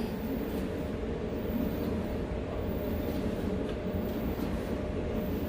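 Washing machine running with a steady mechanical rumble and a faint hum.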